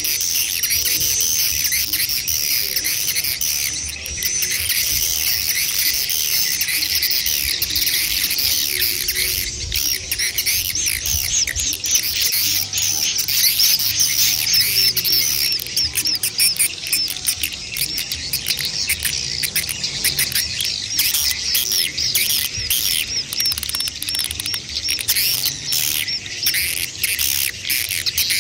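A dense, continuous chorus of swiftlet calls: many overlapping high, rapid chirps and twitters, the kind of adult-and-chick swiftlet sound used to draw swiftlets to a nesting house.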